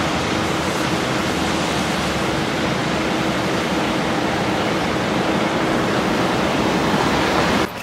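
Loud, steady rushing noise with a faint steady hum under it, cutting off suddenly near the end.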